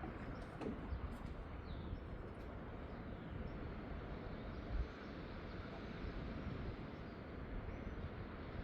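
Steady seaside ambience: a wash of wind and distant surf, with uneven wind rumble on the microphone and a faint bird chirp about two seconds in.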